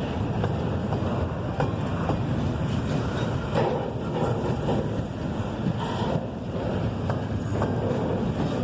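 Freight train rolling past, its wheels rumbling and clicking over the rails, with wind buffeting the microphone.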